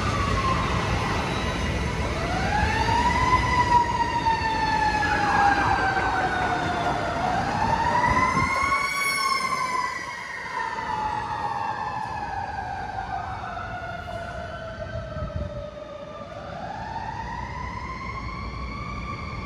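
Emergency vehicle siren wailing, each sweep rising quickly and then sliding slowly down, the sweeps overlapping one another. Under it a passing train rumbles and fades out about halfway through.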